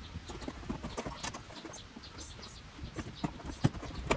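Scattered light taps, clinks and scrapes of a metal molle panel and its mounting hardware being handled and fitted against a vehicle's interior trim, with a few sharper knocks, the last one near the end.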